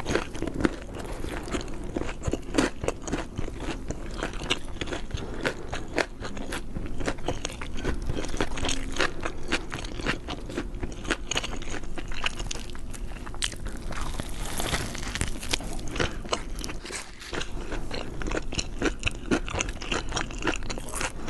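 Close-miked eating: a person biting and chewing food, with a dense, irregular run of crunchy, wet clicks.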